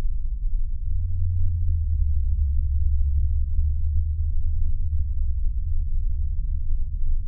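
A deep, steady low hum with nothing higher in pitch, strongest from about a second in to five seconds in.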